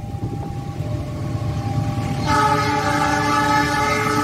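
Diesel locomotive approaching the level crossing with a building rumble. About two seconds in, its air horn starts and holds a sustained chord of several tones.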